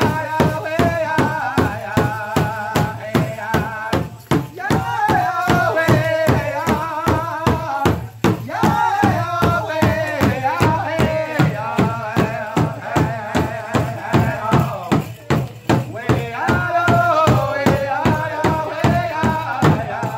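A powwow drum group singing: several high-pitched voices in unison over a large hide-headed powwow drum struck together with beaters in a steady beat of about three strikes a second. The singing breaks off briefly about four, eight and fifteen seconds in while the drumbeat carries on.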